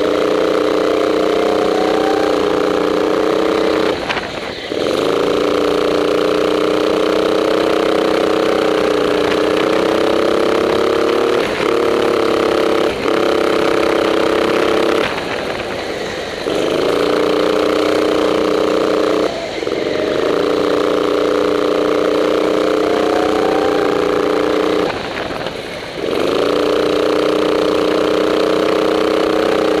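Go-kart engine running hard around a tight indoor track, its pitch climbing steadily along each straight and falling away sharply several times where the throttle is lifted for the corners.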